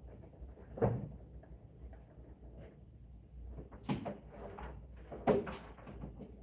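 Three sharp knocks, about a second in, near four seconds and near five seconds, over a low steady rumble.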